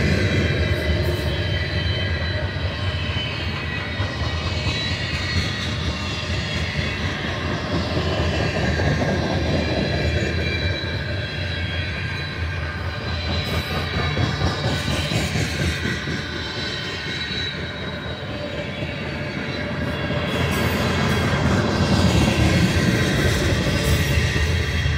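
Loaded covered hopper cars of a freight train rolling past: a steady rumble of steel wheels on rail with a thin high wheel squeal over it, swelling and easing as the cars go by.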